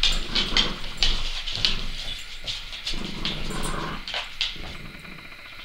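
French bulldog puppies and a Labrador cross at play: growling with irregular scuffling sounds, busiest in the first four seconds.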